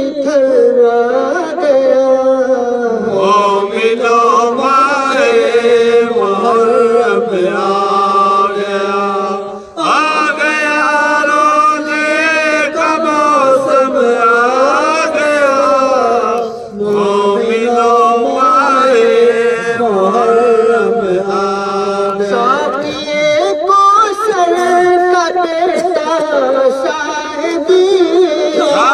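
Male voices chanting a noha, a Muharram lament, in a continuous melodic line, with short breaks between phrases about ten and seventeen seconds in.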